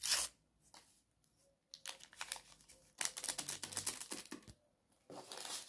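Small sachet of baking powder crinkling and rustling as it is torn open and emptied, in several short bursts.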